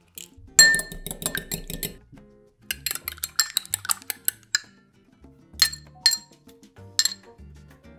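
Metal fork beating an egg in a small glass bowl: rapid clinks of fork against glass in two quick bursts, then a few single clinks.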